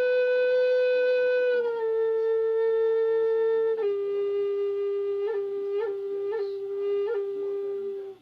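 A siyotanka, the Lakota flute, playing slow held notes. A long note steps down in pitch twice, then a lower note is held and broken by four quick grace-note flicks before it stops suddenly.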